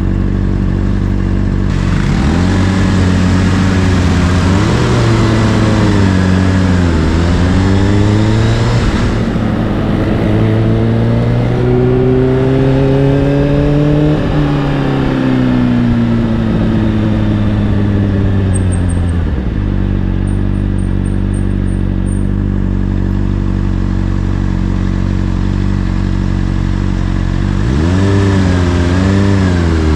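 Honda CBR600RR inline-four with an Akrapovic exhaust, heard while riding: the engine note climbs and drops several times as it accelerates and slows, then runs at a steady low speed for several seconds before revving up again near the end.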